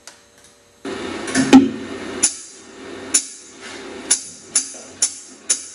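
Instrumental opening of a bolero: music comes in about a second in, a soft backing of chords marked by sharp percussion strikes roughly once a second, coming closer together near the end.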